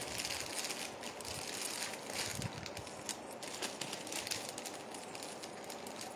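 Soft rustling and crinkling with many small, quick clicks as jewellery pieces and their packaging are handled.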